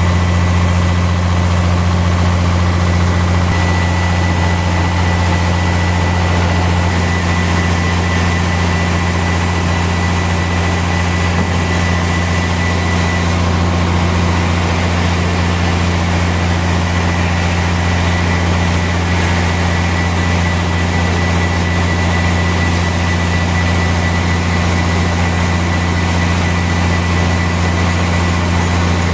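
Sawmill machinery running steadily without a cut under way: a loud, even deep hum with a thin high whine held above it.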